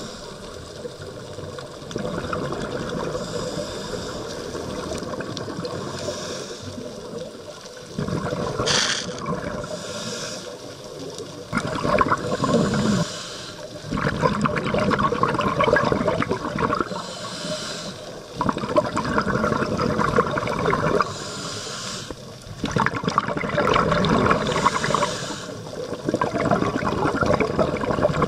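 Scuba diver breathing through a regulator underwater: a hiss on each inhale alternating with loud bubbling on each exhale, repeating every few seconds.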